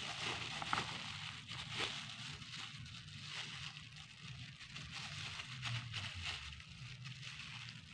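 Thin plastic food-handling gloves crinkling and rustling unevenly as hands squeeze and shape soft mashed-potato dough, over a low steady hum.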